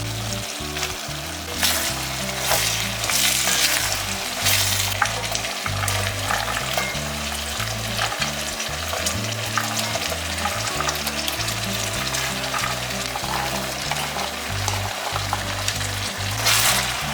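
Food frying in a hot pan while being stirred: a steady sizzle that swells louder a few times as the food is moved, over soft background music.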